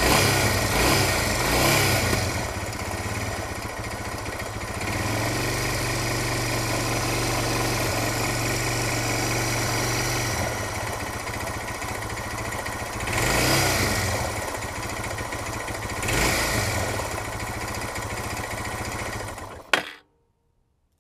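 Suzuki DR650's single-cylinder four-stroke engine idling in neutral, blipped a few times, with the clacking noise it has been making. The owner has already checked valve clearance and the cam chain tensioner, and the clack is present at idle and on acceleration. The sound cuts off suddenly near the end.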